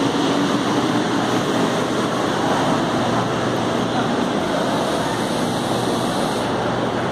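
Steady rushing noise of a metro platform with a train standing at it, its equipment running. A high hiss stops about six seconds in.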